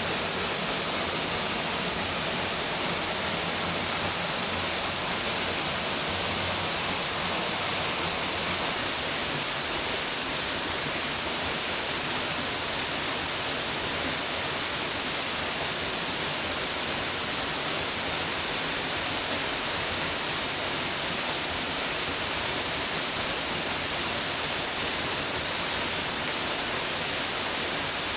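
Waterfall flowing strongly: a steady, unbroken rush of falling water.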